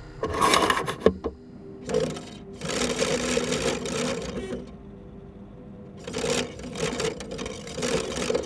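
DVD player mechanism whirring in several bursts of one to two seconds, its small motor giving a steady hum under the noise. A sharp click comes about a second in.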